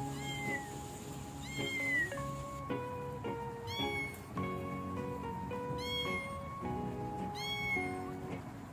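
A young kitten meowing repeatedly, about five high calls roughly two seconds apart, over background music.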